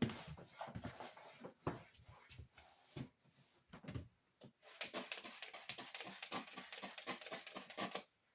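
Kitchen cleaning and handling noises: scattered knocks and clatters, then about three seconds of steady scratchy rubbing with rapid clicks that stops abruptly near the end.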